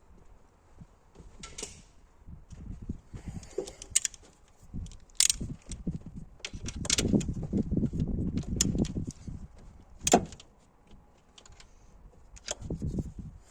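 Hand tools and metal parts clinking, knocking and rattling during work on the engine, with a longer stretch of clatter in the middle and a single sharp knock about ten seconds in.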